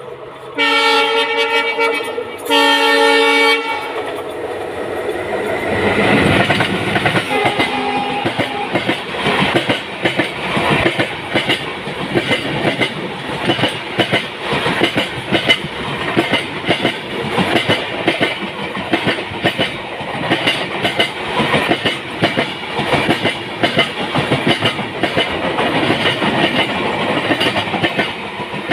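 Two loud horn blasts from an approaching Alco-based WDM-3D diesel locomotive, the first about half a second in and the second about two and a half seconds in. The train then passes close by, and the rhythmic clickety-clack of its coaches' wheels over the rail joints carries on steadily.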